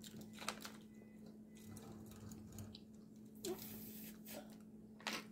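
Quiet eating sounds: a few short mouth and handling noises and a brief sucking sound from a juice pouch sipped through a straw, over a faint steady hum.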